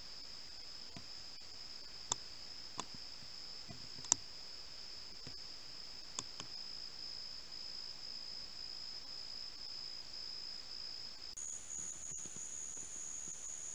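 Crickets trilling steadily at night, with a few sharp clicks or snaps in the first half, the loudest about four seconds in. After an abrupt cut near the end the trill carries on at a higher pitch.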